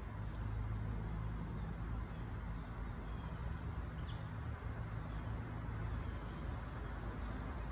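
Outdoor background ambience: a steady low hum and rumble, with a few faint high bird chirps now and then.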